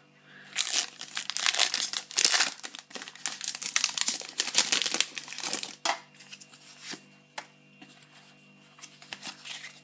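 A Pokémon trading-card booster pack's foil wrapper being torn open and crinkled by hand for about five seconds. Then come quieter rustles and clicks as the cards are slid out and handled.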